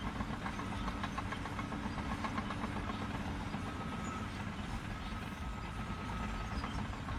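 A running engine, a steady low rumble with faint light ticks.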